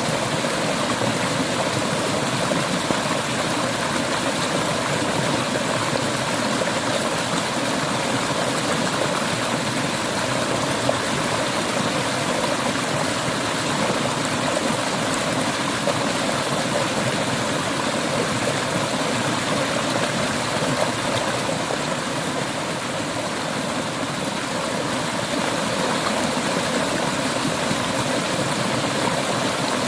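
Mountain river water flowing steadily, an even rushing sound.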